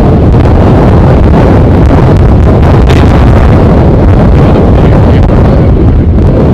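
Strong wind buffeting the microphone: a loud, steady, blustery rumble.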